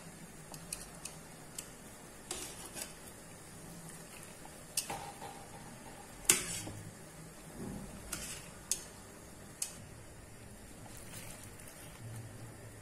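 Metal tongs clinking and scraping against a pot while turning grape leaves in hot water: scattered sharp clinks, the loudest about halfway through, over a faint steady background.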